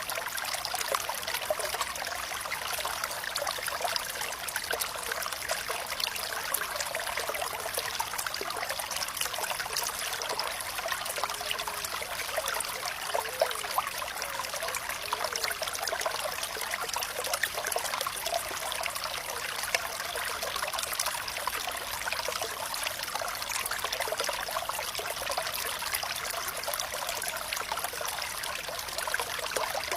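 Flowing water trickling steadily, with many small splashes and plinks and no low rumble.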